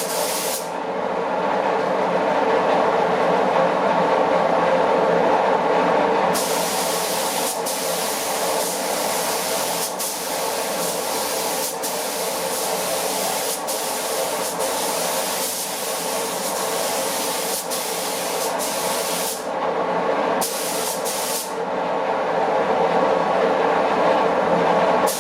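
Spray gun hissing as it lays down a coat of clear lacquer, the hiss starting and stopping with the trigger: a short burst at the start, one long pass from about six seconds in, then brief passes near the end. A steady machine drone runs underneath throughout.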